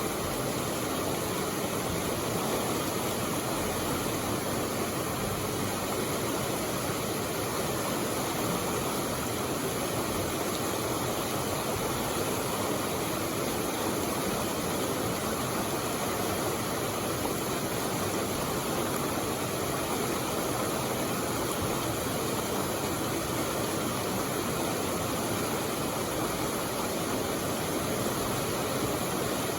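Waterfall and white water rushing steadily, heard up close.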